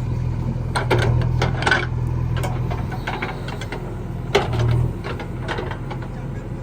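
Diesel engine of a backhoe loader running steadily with a clattering rhythm, with short knocks and clanks in two clusters, about a second in and again about four and a half seconds in.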